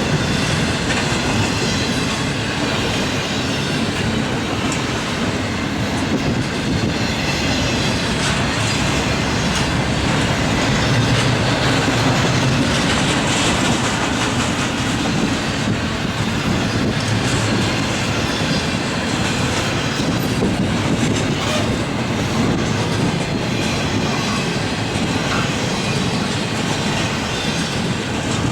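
Norfolk Southern double-stack intermodal train's cars passing at speed: a steady rumble of steel wheels on rail with a continuous clickety-clack of wheels over the rail joints.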